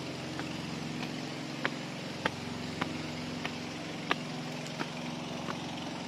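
Footsteps climbing steep steps, a sharp tread about every two-thirds of a second, over a steady low motor hum.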